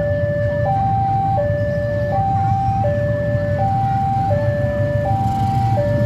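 Railway level-crossing warning alarm sounding its two alternating tones, high then low, about three-quarters of a second each, repeating steadily as a train approaches. A steady low rumble runs underneath.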